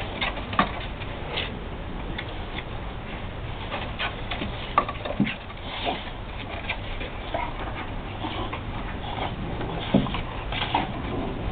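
A boxer and a French bulldog play-fighting: irregular clicks and scuffling, with a few short grunts.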